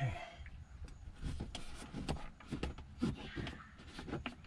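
Irregular clicking, rustling and knocking of a cable being pushed into a vehicle's headliner and plastic interior trim by hand.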